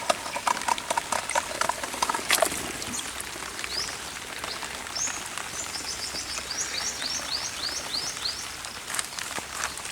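A bird calls with a quick run of short, high, down-slurred notes, about three a second, halfway through. Under it are faint outdoor noise and scattered small clicks.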